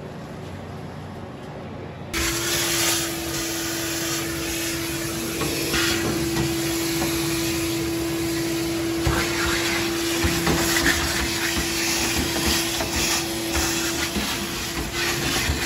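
A motor-driven machine comes on suddenly about two seconds in and runs steadily, giving one held whine over a loud rushing-air hiss, with scattered small knocks and clatters on top.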